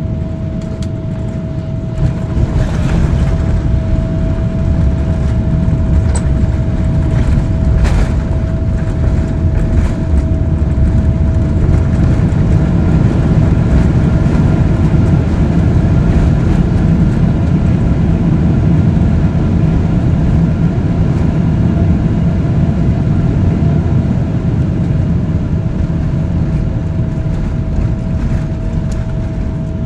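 Jet airliner landing: a steady low rumble of engines and airflow with a steady whine. It grows louder with a sharp knock about two seconds in and another about eight seconds in, stays loud, then eases off near the end.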